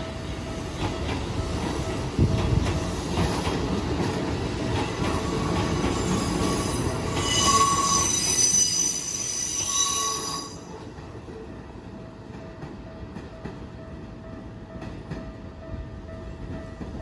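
A Keikyu electric commuter train runs past over a level crossing. Its wheels squeal shrilly for about three seconds near the end of the pass, and the sound of the train falls away about ten seconds in. A steady tone, likely the crossing's warning bell, rings underneath.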